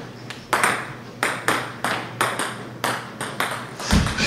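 Ping pong balls bouncing on a hardwood floor: a quick, uneven run of sharp clicks, a few a second. A low thump comes near the end.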